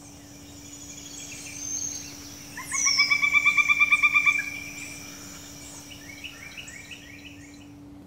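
Pileated woodpecker calling: a loud, rapid series of about fifteen evenly spaced notes lasting under two seconds, around the middle. High, thin songs of small birds sound behind it, over a steady low hum.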